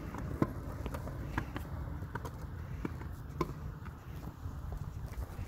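Kick scooter and footsteps on a concrete sidewalk: a steady low rumble with scattered light clicks and taps, roughly one or two a second.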